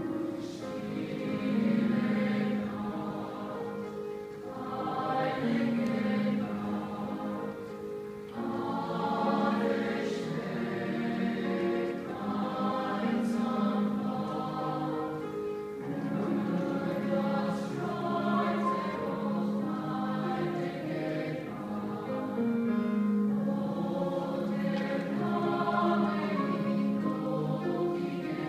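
A large mixed choir singing, held notes swelling and fading in phrases a few seconds long.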